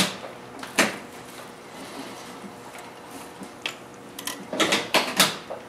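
Cloth being handled at a sewing table: a few sharp clicks and short rustles, bunched toward the end, over a faint steady hum.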